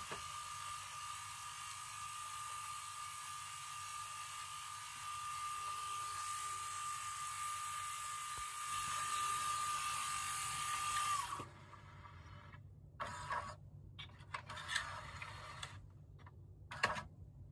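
LG EC290W VHS VCR running a paper-tape head-cleaning cassette: the tape transport and head drum run with a steady whine over a hiss, then stop suddenly about two-thirds of the way in. A few short mechanical clicks and rattles follow.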